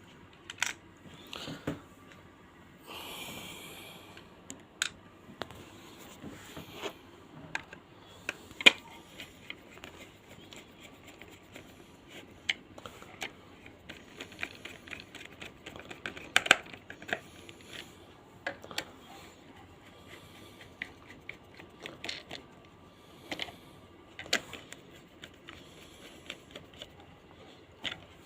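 Small screws being driven into a pulse oximeter's plastic case with a small screwdriver, along with handling of the plastic parts: scattered sharp clicks and light ticking, with a brief rustle about three seconds in.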